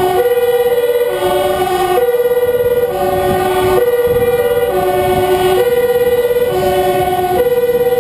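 Two two-tone emergency sirens sounding together, each switching between a high and a low note about once a second, one pitched higher than the other and out of step with it: the fire engine's own siren and that of the vehicle ahead in the convoy. Engine and road noise lie beneath.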